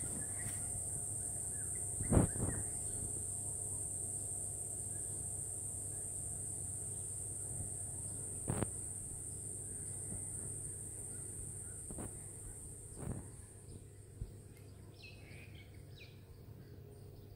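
Steady high-pitched insect drone over a low hum, fading out about fourteen seconds in. A few thumps cut through it, the loudest about two seconds in, and there are a few short bird chirps near the end.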